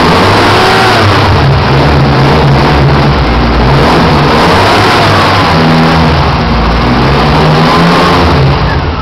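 Carburetted car engine being revved by hand at the throttle linkage, its pitch rising and falling in several swells, then dropping back toward idle near the end.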